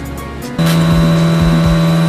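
Background music with a steady kick-drum beat; about half a second in, a loud steady machine hum with a strong low tone cuts in over it and holds: a Longtech roots blower running.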